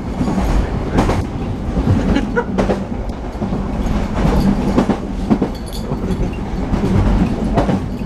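Inside a moving train carriage: a steady low rumble and hum with irregular knocks, rattles and clicks from the wheels and bodywork over the track, a rough, shaking ride.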